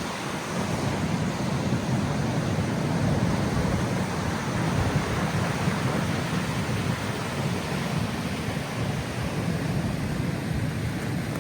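Strong wind buffeting the microphone over the steady low rumble of heavy surf.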